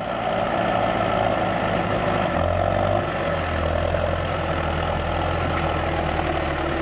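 John Deere tractor's diesel engine running steadily, its tone shifting slightly about three seconds in.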